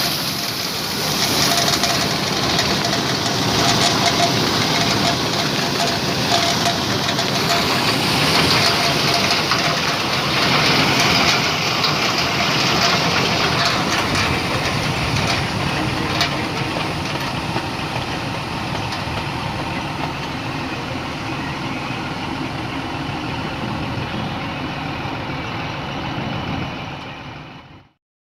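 KS Combine harvester running steadily, engine and unloading auger working as grain pours from the spout into a trailer. The sound cuts off abruptly near the end.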